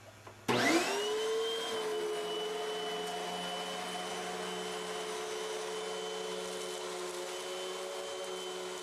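Hoover Windtunnel MAX Performance Pet UH72625 bagless upright vacuum switched on about half a second in: its motor whine rises quickly in pitch, then runs steadily at full speed.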